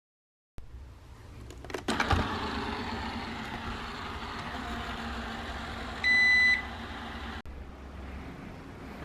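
A small electric appliance starts with a click and runs with a steady hum. It gives one clear beep and then stops abruptly about a second later.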